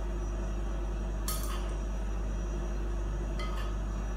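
Steady low hum with a couple of faint clicks, one about a second in and one near the end, from a person eating soup with a spoon.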